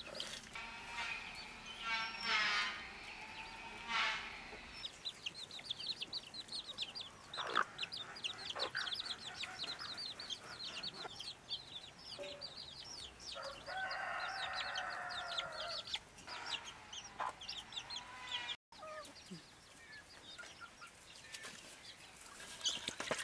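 Domestic hens clucking now and then, with a long run of rapid, high chirping from small birds.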